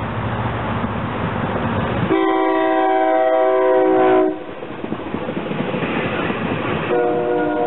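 SEPTA Silverliner V electric multiple-unit train passing close by and sounding its multi-tone horn. A rumble builds as it approaches, then a horn blast of about two seconds cuts off sharply. Wheel-on-rail running noise follows as the cars go by, and a second horn blast starts near the end.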